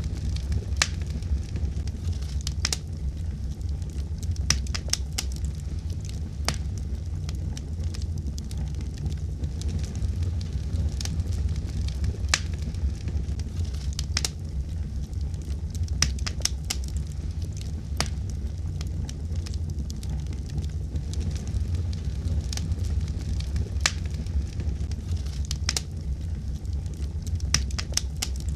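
Fire burning in a fireplace, crackling with many irregular sharp pops and snaps over a steady low rumble.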